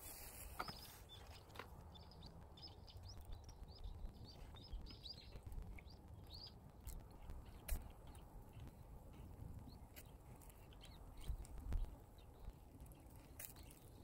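Quiet outdoor ambience with faint small birds chirping in short repeated calls, mostly in the first few seconds, and a few scattered soft crackles from a slab of beef on a charcoal grill.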